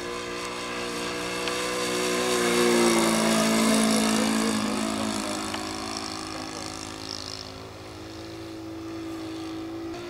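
Radio-controlled scale model aeroplane engine flying past: it grows louder, peaks about three seconds in and drops in pitch as it goes by, then settles to a quieter steady drone.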